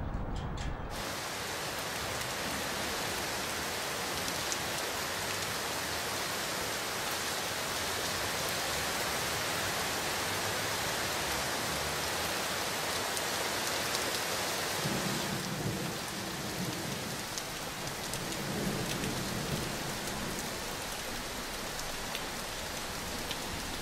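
Steady rain falling and splashing on hard surfaces, starting suddenly about a second in, with a low rumble for a few seconds about fifteen seconds in.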